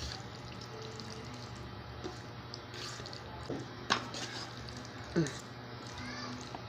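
Spaghetti being stirred to mix in its sauce, with soft wet squishing and a couple of sharp utensil clicks about four and five seconds in, over a low steady hum.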